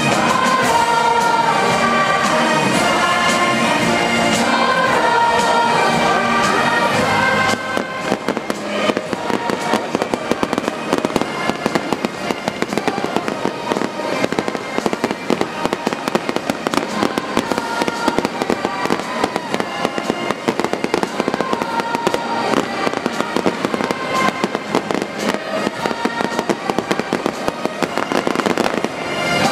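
Massed military band music plays until about seven seconds in. It then gives way abruptly to fireworks bursting and crackling in dense, irregular pops that go on without a break.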